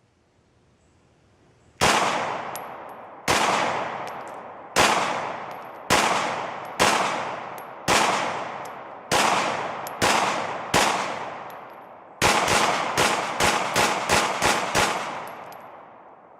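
Glock 19X 9mm pistol firing about twenty shots, each trailing off in a long echo: first about nine deliberate single shots roughly a second apart, then a quick string of about a dozen near the end.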